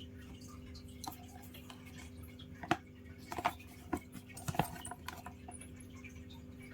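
Light clicks and taps from handling a perfume box and bottle during unboxing, a handful of them bunched in the middle, over a steady low hum.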